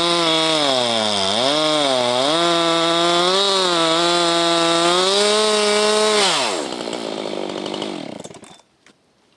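Husqvarna 390XP two-stroke chainsaw on a 37-inch bar, running at full throttle through a pine stump; its pitch dips twice as it bogs under load in the cut. About six seconds in the throttle is released and the engine winds down, going quiet near the end.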